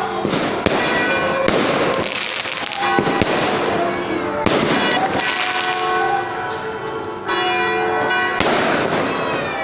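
Fireworks going off repeatedly: a string of sharp bangs with crackling between them, about every second. Steady ringing tones sound underneath throughout.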